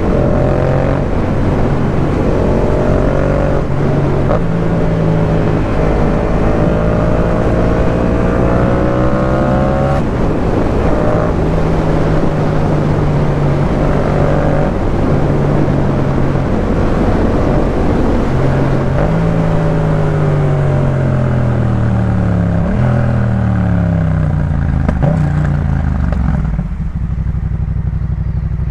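Yamaha MT-07's parallel-twin engine running through a Jeskap K4 full aftermarket exhaust while riding, its pitch rising and falling with the throttle. In the second half it slows, the pitch falling in several steps as it comes down through the gears, then settles to a lower, steady note near the end.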